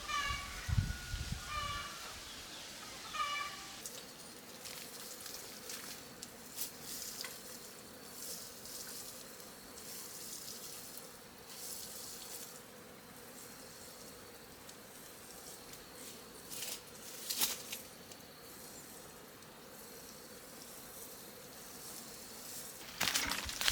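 A cat meowing about three times in the first few seconds. Then a faint, steady buzzing hum with occasional light clicks and rustles.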